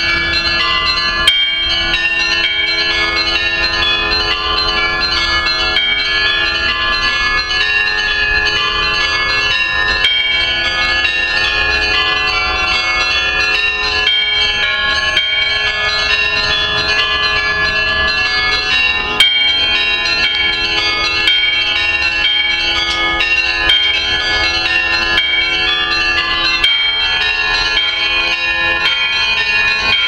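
Bells of a Russian Orthodox church rung in a continuous festive peal (perezvon): many bells of different pitches struck in quick succession without a break, over a steady lower bell tone.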